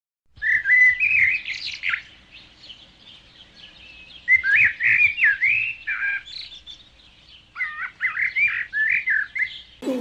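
A songbird singing short, quick warbled phrases in three bursts a couple of seconds apart.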